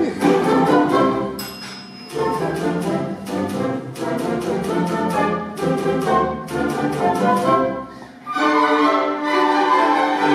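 Orchestra of strings and brass playing with a typewriter as the solo instrument, its keys clicking in quick rhythm. A carriage-return bell dings about one and a half seconds in. The clicking stops about eight seconds in while the orchestra plays on.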